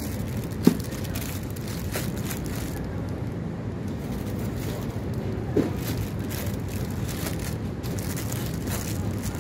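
Steady low background rumble, with light crinkling and tapping as cellophane-wrapped rose bouquets are packed into a cardboard flower box, and two short sharp knocks, one under a second in and one about five and a half seconds in.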